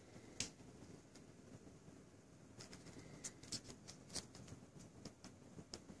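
Near silence in a quiet room, broken by scattered faint sharp clicks and ticks: one about half a second in and a cluster of them around the middle.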